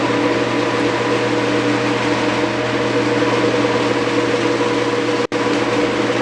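Genie GX9000 screw-drive garage door opener running, its motor turning the screw to move the door: a very noisy, steady whirring hum. There is a split-second break about five seconds in.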